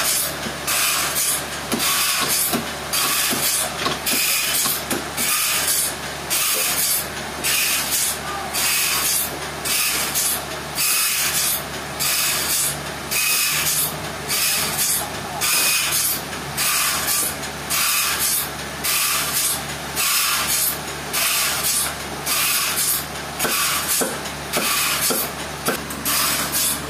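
Sawmill machinery working trembesi wood: a loud mechanical hiss that swells and drops about once a second, over a steady low hum.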